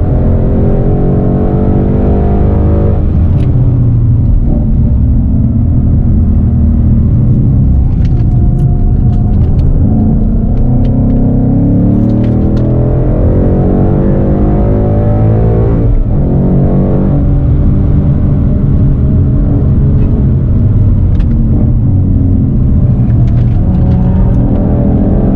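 2015 Ford Mustang GT's 5.0-litre V8 through a Borla ATAK exhaust, heard from inside the cabin under hard driving, its pitch rising and falling again and again through gear changes and corners. There is a sharp break in the engine note about two-thirds of the way through.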